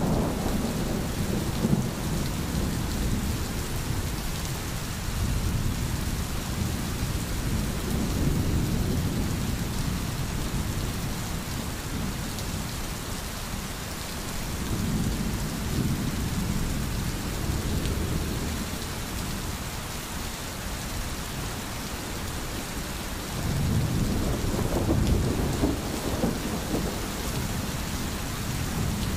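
Thunderstorm: steady rain with deep rolling thunder rumbling several times, strongest near the end.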